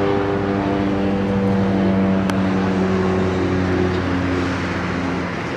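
Road traffic on the highway: a heavy vehicle's engine running at a steady pitch as it drives past, fading near the end.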